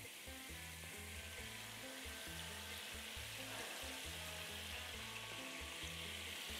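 White wine sizzling and bubbling steadily in a hot iron pan as it reduces after deglazing, the alcohol cooking off. It grows a little louder near the end.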